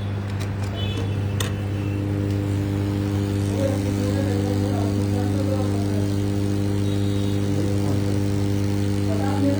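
Steady electrical hum of mains-powered equipment, even and unchanging throughout, with a few light ticks and a short high beep in the first two seconds.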